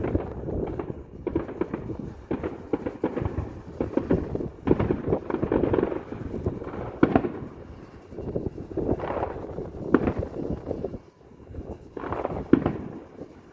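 Fireworks display bursting in rapid, continuous succession: a dense run of booms and crackles, with a few sharper, louder bangs along the way.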